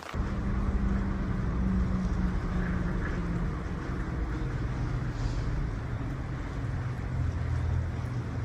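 A vehicle engine running: a steady low rumble with a hum, beginning abruptly.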